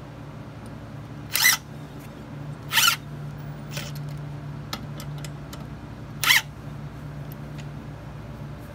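Cordless drill/driver run in three short bursts, driving screws into wood, over a steady low hum.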